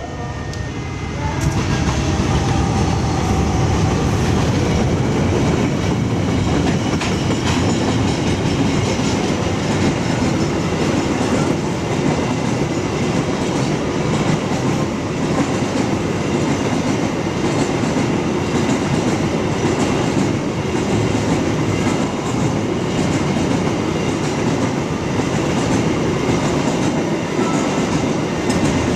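Train of railway wagons passing close by: a loud, continuous rumble of wheels on rails with clattering over the rail joints, swelling about a second and a half in and then holding steady.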